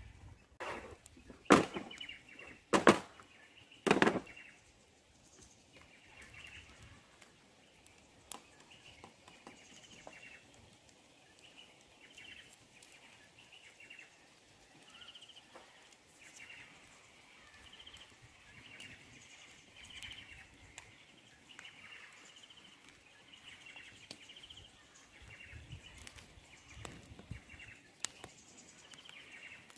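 Three sharp knocks in the first few seconds, then quiet outdoor ambience with faint, repeated bird calls.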